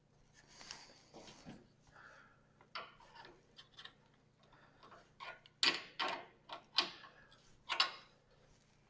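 Small metallic clicks and short scrapes of a wrench working the nut on a sawmill's height-scale pointer while it is being set and tightened. A few sharper clicks come close together about five to eight seconds in.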